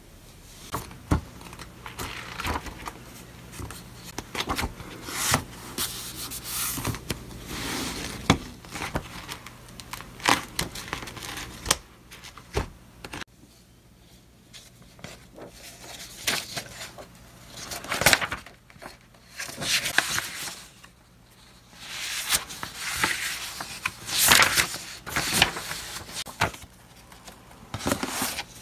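Sheets of paper and spiral-bound notebooks being handled: loose printed pages rustling and sliding against each other as stacks are shuffled and sorted. It comes in irregular bursts with a few short lulls.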